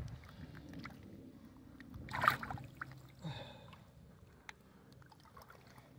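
Water splashing and sloshing from a sturgeon struggling while it is held for measuring. A loud splash comes about two seconds in and a smaller one about a second later, with light wet handling clicks between.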